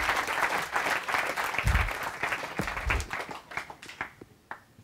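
Audience applauding, dense at first, then thinning to scattered single claps that die out after about four seconds. A couple of low thumps come in the middle.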